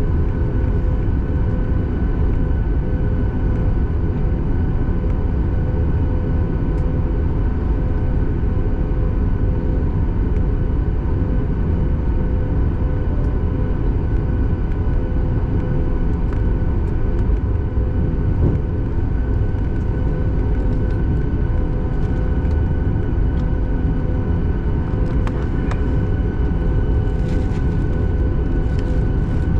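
Inside the cabin of a Boeing 737 MAX 8: its CFM LEAP-1B engines at high power give a loud, steady rumble with several steady whining tones above it. A few faint clicks come near the end.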